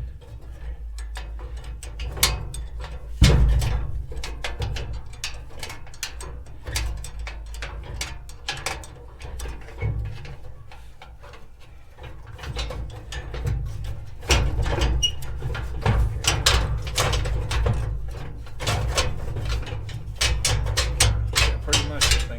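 Hand tools working on a gas grill's metal burner fuel rail, making a run of irregular clicks and clanks over a low rumble, busier and louder in the second half.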